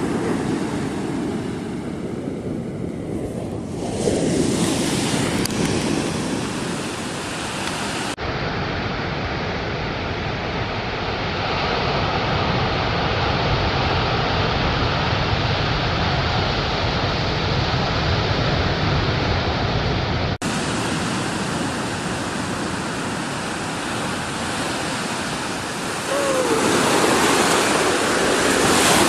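Ocean surf washing onto a sandy beach in a steady rush, with two abrupt shifts in its tone about 8 and 20 seconds in.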